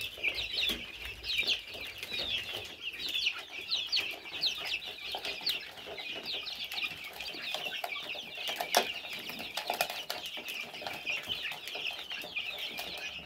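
A flock of young chicks peeping continuously, many short high peeps overlapping. A single sharp tap about two-thirds of the way through.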